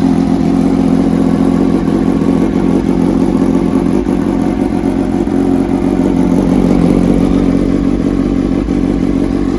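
MV Agusta F3 675 three-cylinder race engine running steadily at idle through an Akrapovic race exhaust, without revving, just started after standing unused on a booster battery.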